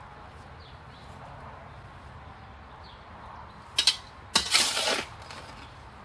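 A shovel scraping through mixed concrete in a wheelbarrow: a short scrape a little before four seconds in, then a longer, louder scrape half a second later, over a steady low background noise.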